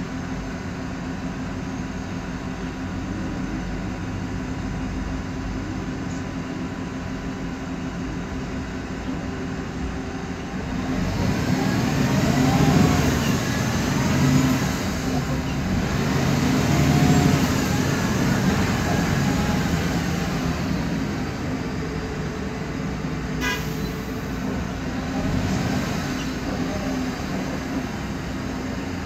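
Cabin noise of a 2008 MAN Lion's Classic CNG city bus under way: a steady drone with a whine from the noisy differential and ZF Ecomat gearbox. About eleven seconds in it grows louder, with whining tones rising and falling in pitch, then settles back.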